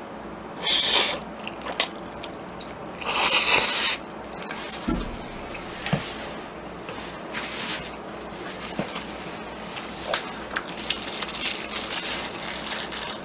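A person slurping jjajangmyeon noodles: two long, loud slurps in the first four seconds, then wet chewing with smaller slurps.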